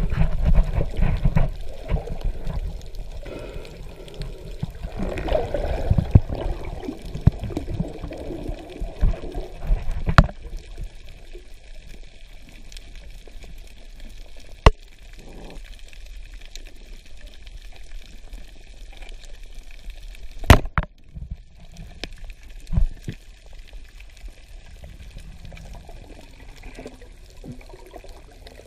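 Underwater water noise from a swimming diver, sloshing and gurgling against the camera housing, busiest during the first ten seconds. A few sharp clicks break the quieter stretch after that, the loudest a single knock about twenty seconds in.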